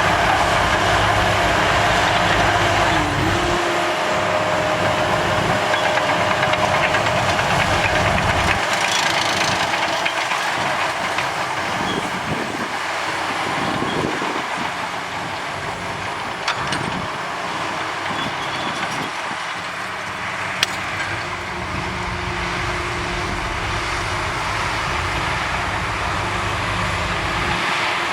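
Heavy diesel earthmoving machinery running steadily with a continuous engine drone. The deep rumble eases about a third of the way in and comes back strongly near the end, with a single sharp click about two-thirds of the way through.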